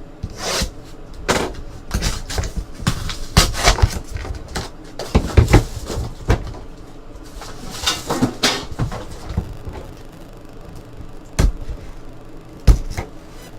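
Sealed trading-card box being handled and opened by hand: irregular rustling, scraping and light knocks of cardboard and wrapper.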